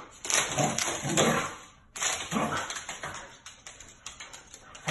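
Two dogs play-fighting: short growls and barks over a rapid clatter of claws on a hardwood floor. The vocal bursts are loudest in the first second and a half and again around two seconds in.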